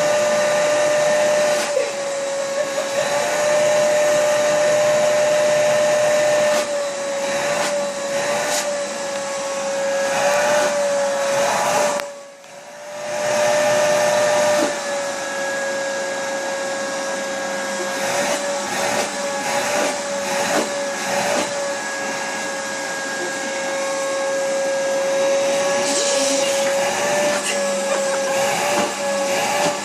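Vacuum cleaner running on a cat's fur, a steady whine whose pitch wavers a little. About twelve seconds in, the sound briefly drops away sharply and then comes back.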